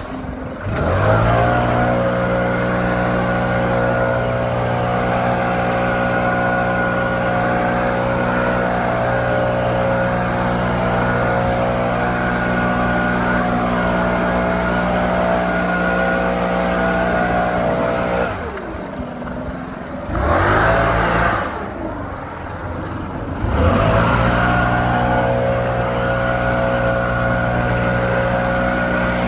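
Stihl BR700 backpack leaf blower's two-stroke engine revving up to full throttle and running steady with its fan blowing. About two-thirds of the way through it throttles down, blips briefly, then revs back up to full speed for the rest.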